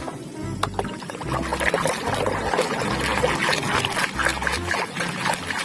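Water pouring and splashing over a plastic toy vehicle as it is washed clean of mud, with small clicks and knocks of the toy being handled.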